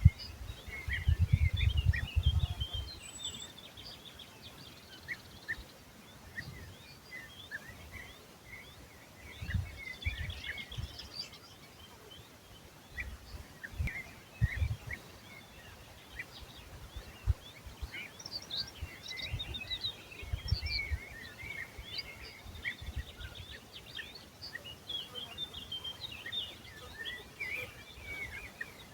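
Several songbirds chirping and singing in quick, overlapping short calls. Low rumbles on the microphone come and go, loudest in the first two seconds.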